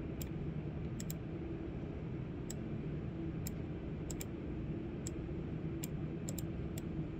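Computer mouse clicking about a dozen times, sometimes in quick pairs, as parts of a 3D model are selected and dragged, over a steady low hum.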